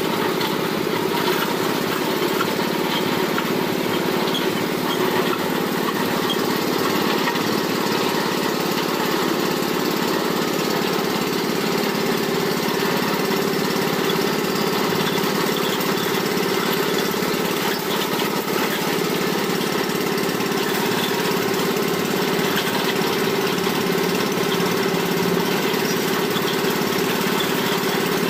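Small engine of a borehole-drilling setup running steadily at constant speed.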